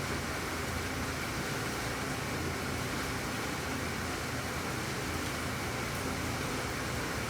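Steady rain falling: an even hiss with no single drops, thunder or other events standing out.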